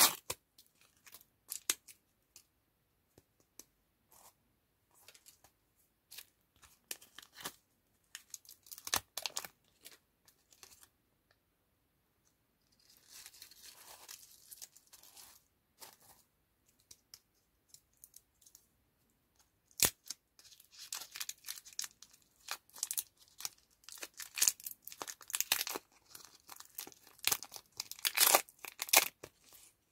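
Candy wrappers of Zhevamba chewy lollipops, a plastic outer wrapper and a paper inner wrapper, being peeled and torn open by hand. Bursts of crinkling and tearing with pauses between them, a softer rustle near the middle and one sharp click about twenty seconds in. The crinkling is densest and loudest near the end.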